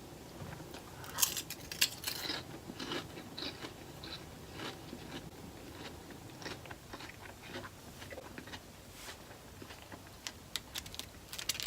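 Close-up eating sounds: chewing with irregular small crunches and wet mouth clicks, faint, a few louder crunches about one to two seconds in.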